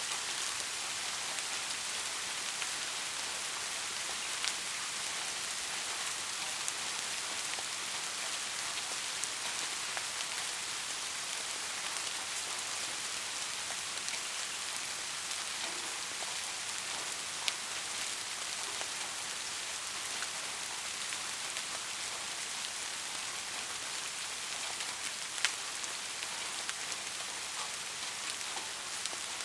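Steady rain falling on a surface, a continuous hiss with scattered louder drops ticking, two sharper ones about 17 and 25 seconds in.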